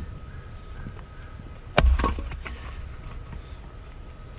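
One heavy strike of a splitting axe into a hard log round on a chopping block about two seconds in: a sharp crack with a dull thud. The round does not split.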